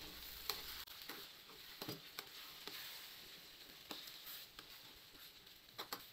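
Metal ladle stirring a thick tomato-ketchup spaghetti sauce in a frying pan over a faint sizzle, with a few light clicks and scrapes of the ladle against the pan.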